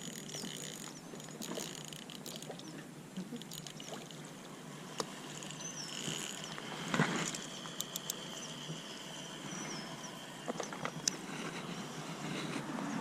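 Outdoor ambience with scattered small clicks and handling noises, and a few short high bird chirps about five to six and eight to nine seconds in.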